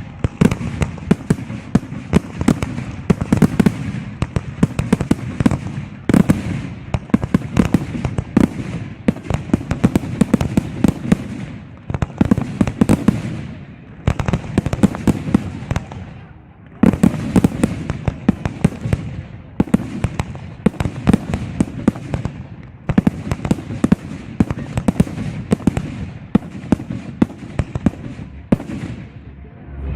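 Fireworks display: a dense barrage of aerial shell bursts and crackling reports, many bangs a second, with short lulls a few times before the firing picks up again.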